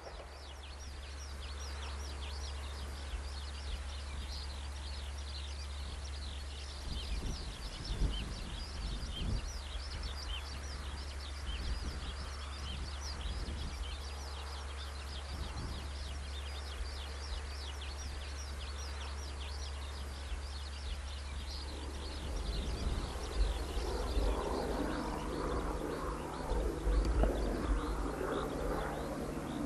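Outdoor rural ambience: a dense chorus of short, high chirps from small animals over a steady low rumble. From about two-thirds of the way in, a louder, rougher noise swells in underneath.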